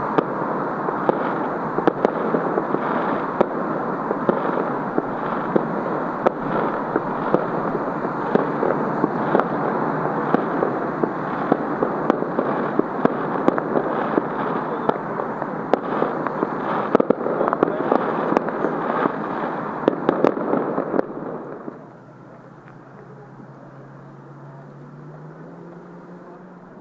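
Fireworks display: a dense, continuous barrage of bangs and crackling. About three-quarters of the way through it stops abruptly, leaving a much quieter background.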